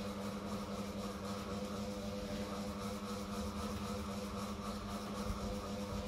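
A steady, unchanging mechanical hum with a low rumble, from a motor running.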